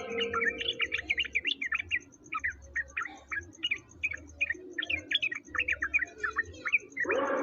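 Songbird chirping in a fast run of short, sharp notes, several a second, from a masteran recording of the kind played to tutor caged songbirds.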